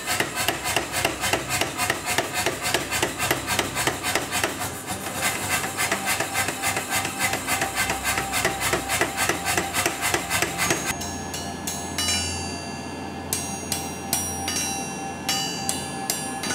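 Mechanical power hammer pounding a hot steel bar in a fast, steady rhythm of about three to four blows a second. About eleven seconds in it gives way to a hand hammer striking hot steel on an anvil, a few spaced blows with the steel ringing, over a steady low hum.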